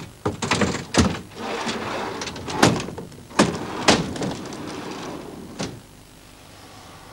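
Wooden sliding storm shutters (amado) rumbling along their wooden track, with a string of sharp knocks as the panels bang into place. The sound stops about six seconds in.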